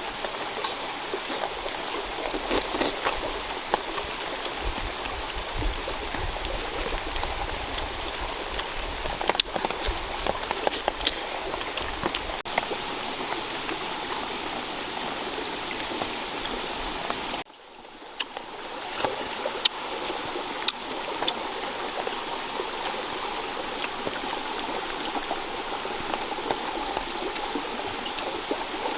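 Steady rush of running water with scattered small clicks. The sound cuts out briefly about two-thirds of the way through and then resumes unchanged.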